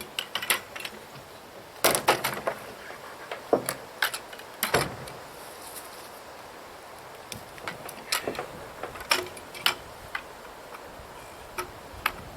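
Irregular sharp knocks and clatters, coming in a few clusters with quieter gaps between.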